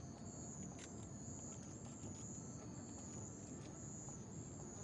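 Night insects trilling in a high, steady pitch, in long bursts with short breaks, over a faint low background rumble.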